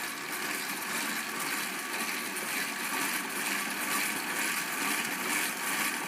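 Old exercise bike being pedalled hard, its wheel spinning a homemade ceiling-fan permanent-magnet alternator: a steady mechanical whir with a slight rhythmic rise and fall. The alternator is turning fast enough to put out over 100 volts AC into a fluorescent light.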